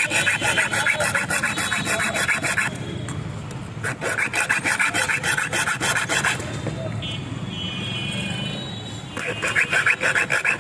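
Metal being filed by hand in quick rasping strokes, in three spells of a few seconds each, as a duplicate key blank is shaped.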